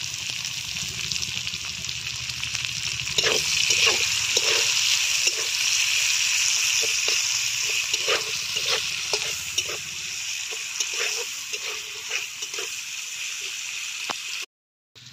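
Sliced onions sizzling in hot mustard oil in a kadai, with a metal spatula scraping and knocking against the pan as they are stirred. The sizzle grows louder about three seconds in, and the sound drops out briefly just before the end.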